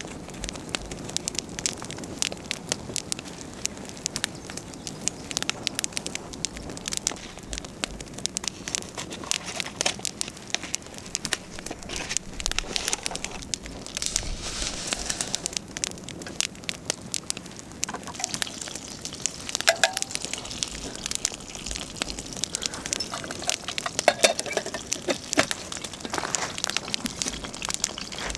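Small wood cooking fire crackling and popping, a dense, irregular run of sharp snaps.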